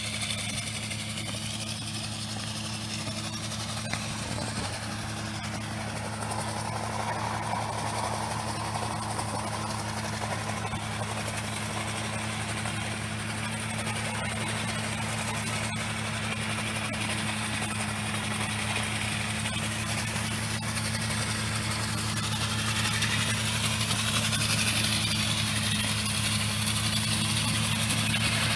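Tractor engine running steadily under PTO load, driving the compressor of an Olmi 400R air-impulse deleafer, with a rushing hiss from the air blasts stripping leaves. The sound grows slowly louder over the last third as the tractor comes closer.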